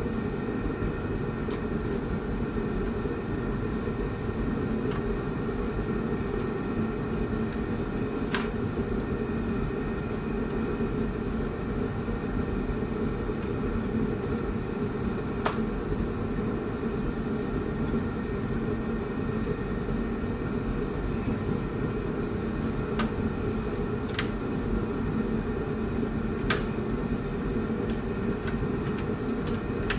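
A steady low mechanical drone from a running machine, with about half a dozen sharp light clicks scattered through it from small metal parts being handled while a face plate is fitted onto a welding machine's control panel.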